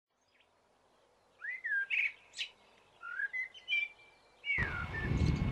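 A songbird singing, a series of short chirps and warbled phrases with a held high note near the end. About four and a half seconds in, a steady rumbling outdoor noise cuts in suddenly beneath it.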